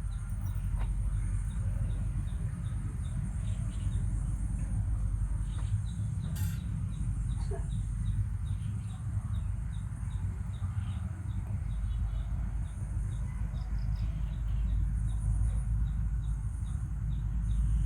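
Insects chirping: a steady high buzz with a light chirp repeating about two or three times a second, over a steady low rumble.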